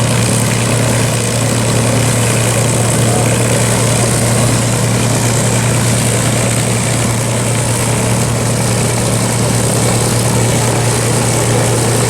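P-51 Mustang's V-12 piston engine running at a steady idle, an even low propeller drone with no change in pitch, while the fighter stands before taxiing.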